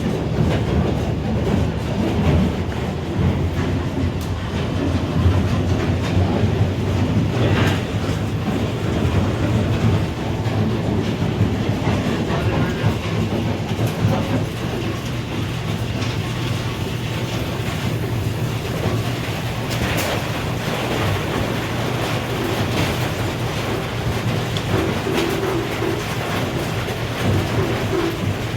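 Grain bin pit auger, driven by a 480-volt three-phase electric motor, running steadily under load with a low hum and a continuous rattling clatter as it moves grain.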